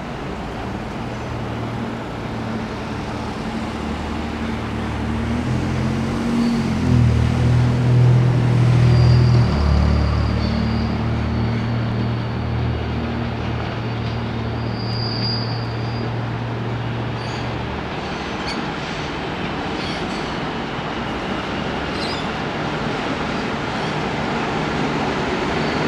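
A train passing: a low, steady drone that is loudest about eight to ten seconds in and dies away a little after halfway, with a thin high squeal in the middle, over a constant rushing rumble.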